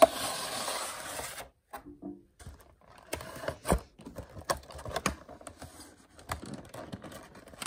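Cardboard collection box being handled and opened: a sharp snap, then a rustling slide of card lasting about a second and a half. From about three seconds in come scattered light clicks and taps from the clear plastic tray of cards being handled.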